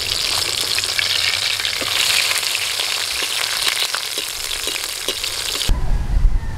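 Coated whole pomfret shallow-frying in hot oil in a kadai on a low flame, a steady sizzle with scattered crackles and pops. The sizzle cuts off suddenly near the end and a low rumbling noise takes over.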